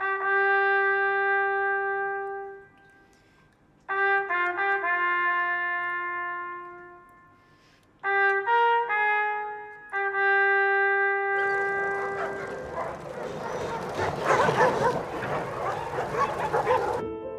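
Solo trumpet playing slow, held phrases separated by short pauses. About eleven seconds in, a loud, dense din of many dogs barking at once takes over, then cuts off suddenly near the end.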